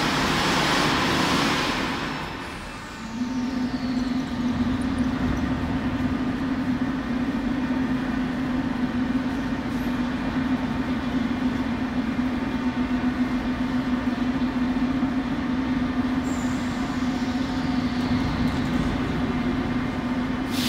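Soviet-type 81-717/714 metro train at a station platform: a loud hiss of air over the first two seconds as it comes to rest, then a steady low hum from the standing train. Another hiss starts at the very end.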